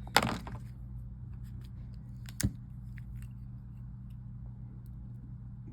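Small clicks and taps as a bracket is set back into an opened smartphone: a sharp click just after the start, a few faint ticks, and another sharp click about two and a half seconds in, over a steady low hum.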